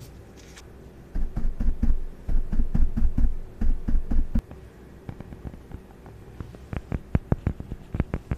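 ASMR object sounds close to the microphone: about three seconds of soft, low thudding taps in quick clusters, then after a short pause a run of sharp, separate clicks or taps that grows denser near the end.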